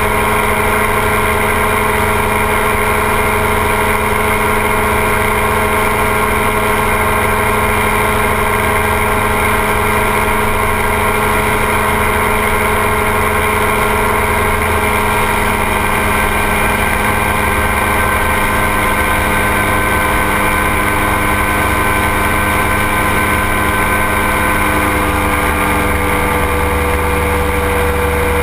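Ultralight trike's engine and propeller drone steadily in cruise flight, pitch shifting slightly in the last few seconds.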